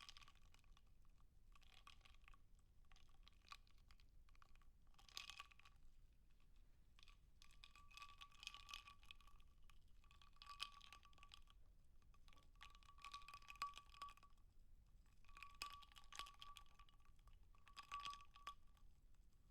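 Faint computer keyboard typing and clicking, in short bursts of a second or two with brief gaps between.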